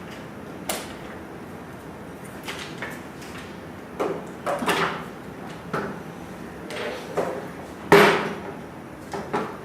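Scattered metallic clicks and knocks of a bicycle pedal and crank being handled with an Allen key, with the loudest knock about eight seconds in.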